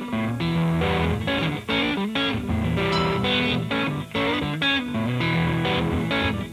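Stratocaster-style electric guitar played through an amp, picking a rockabilly intro riff of single notes and chords with no drums behind it.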